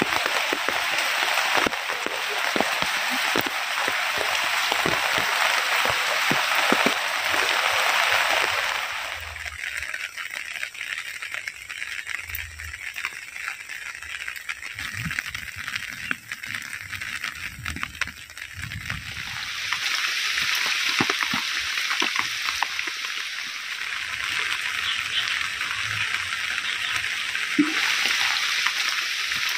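Heavy rain falling steadily. About a third of the way in the hiss drops away, leaving individual drops striking a surface, and about two-thirds of the way in the heavy rain comes back up.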